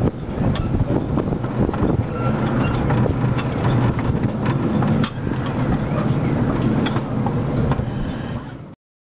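Miniature steam train running round a curve, heard from an open carriage: steady running noise with irregular clicks and knocks of the wheels on the track. The sound cuts off suddenly near the end.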